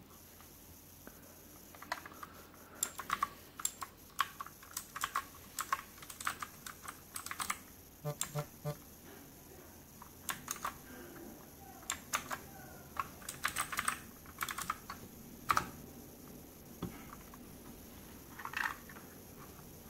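Typing on an RK61 mechanical keyboard with clicky blue switches: irregular runs of sharp key clicks begin about two seconds in, come thick and fast, and thin out to a few scattered presses near the end.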